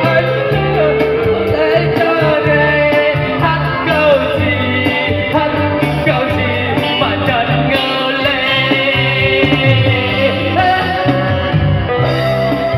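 A man singing into a microphone over an amplified live band with guitar and a steady bass line.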